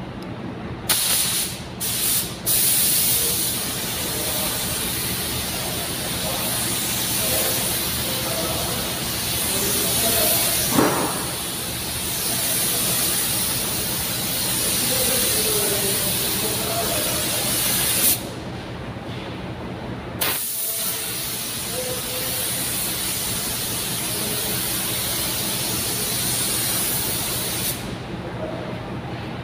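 Gravity-feed compressed-air paint spray gun hissing in long, steady passes as paint is sprayed onto a car's front end. There are short trigger pulls near the start, a break of about two seconds a little past halfway, and it stops again near the end. A steady low hum runs underneath.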